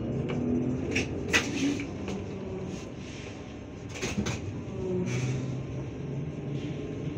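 Low hum inside a moving trolleybus, with sharp knocks and rattles about a second in and again about four seconds in.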